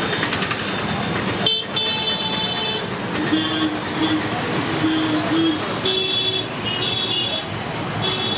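Road traffic running steadily, with vehicle horns honking several times in short toots.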